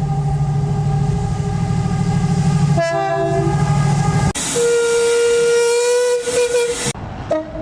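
Train horns: first a horn sounds over a diesel locomotive's heavy throbbing engine, stepping down to a lower note about three seconds in. Then, after an abrupt cut, a different train's horn sounds one steady note for about two and a half seconds, with a short toot near the end.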